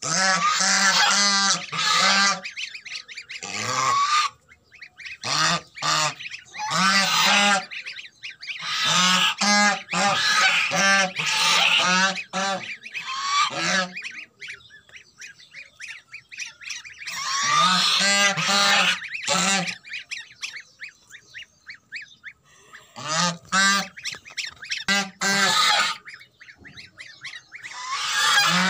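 Domestic geese honking in about six loud bouts of rapid, repeated honks, with short pauses between the bouts.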